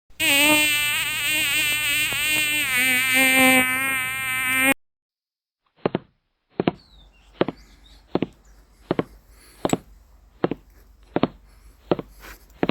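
A loud buzzing, insect-like pitched tone that wavers up and down in pitch for about four and a half seconds, then cuts off suddenly. After a short pause come short sharp clicks, about one every three-quarters of a second, about ten in all.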